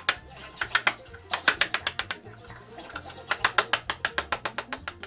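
Hammer tapping a chisel in quick runs of sharp taps, chipping old glazing putty out of a wooden window sash, over background music.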